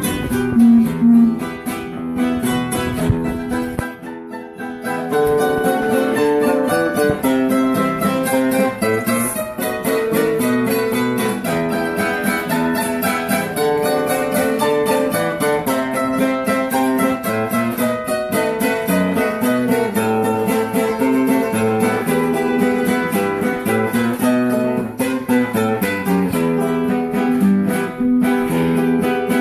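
Two acoustic guitars playing together in an instrumental passage, picked melody notes over strummed and sustained chords.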